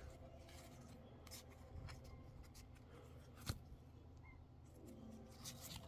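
Near silence with faint handling of trading cards: light rubbing and small ticks, and one sharper click about three and a half seconds in.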